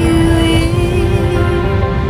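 Background music: a single note held for most of the two seconds over a steady low accompaniment.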